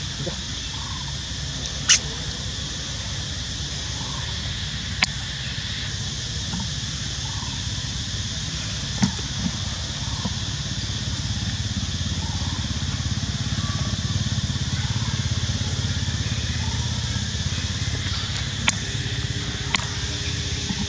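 Steady outdoor background of a low rumble and a high steady hiss, broken by a few sharp clicks.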